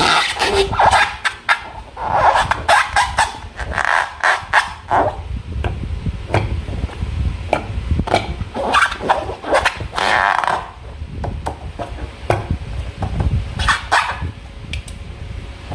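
Slime being squeezed and worked by hand: irregular wet squelches and sharp clicking pops, busiest in the first ten seconds and sparser afterwards.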